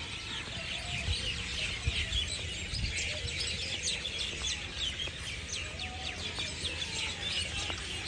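A flock of small birds chirping continuously, with many short, high calls overlapping. A few low bumps come in the first few seconds.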